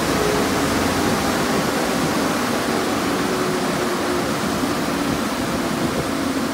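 Car wash tunnel dryer blowers running with a steady rushing noise. A faint whine sinks slowly in pitch.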